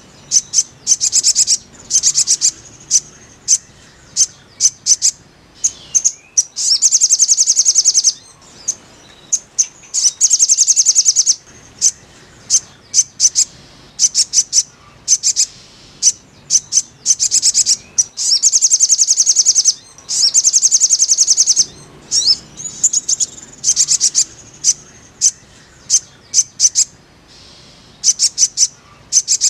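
Sogon (sogok ontong) songbird singing: rapid, high, fast-pulsed trills in bursts of a second or two, repeated again and again with short chirps in between. This is played as a therapy recording to bring a caged sogon into song.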